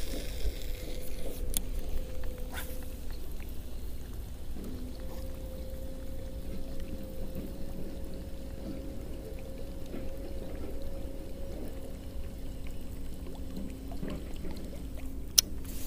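Baitcasting reel wound steadily to retrieve a lure, an even whir, with a few sharp clicks early on and a louder click near the end. A low rumble of wind on the microphone runs underneath.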